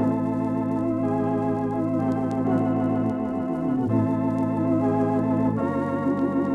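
Radio-drama organ music: held chords with a slight vibrato, moving to a new chord about four seconds in and again near the end.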